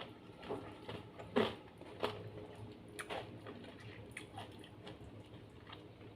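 Close-up chewing and mouth sounds of someone eating jengkol with rice: scattered soft clicks and a few louder wet smacks, the loudest about a second and a half in.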